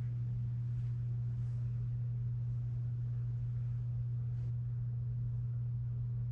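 A steady low hum on one deep tone that does not change, with a few faint ticks over it.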